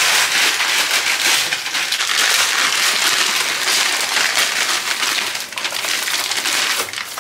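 Plastic packs of dried bihon (rice vermicelli) crinkling as they are emptied into a plastic basin, with the brittle dried noodle cakes crackling as they tumble in and are pressed down by hand.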